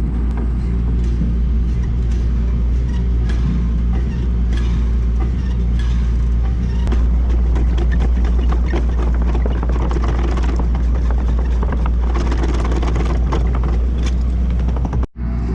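A heavy engine running steadily, with scattered clicks and knocks over it. The sound cuts out briefly near the end.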